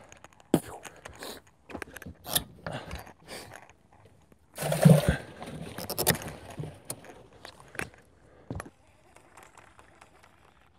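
Scattered knocks, clicks and clatter of handling gear on a bass boat's deck, with a louder noisy burst about halfway through.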